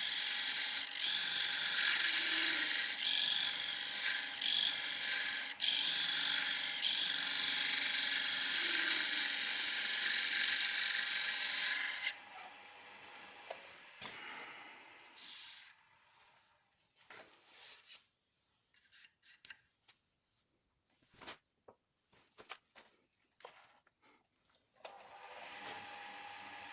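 Wood lathe running while a homemade turning chisel cuts the spinning wood: a steady scraping hiss over a faint motor hum for about twelve seconds. The cutting then stops, leaving only scattered faint knocks and rustles, and a steady hum comes back near the end.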